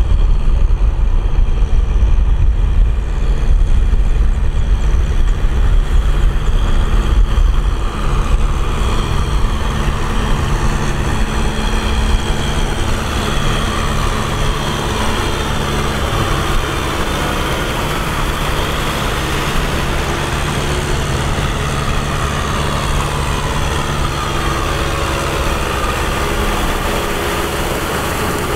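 Farm tractor engines running steadily under load, with a rotary tiller churning through wet mud.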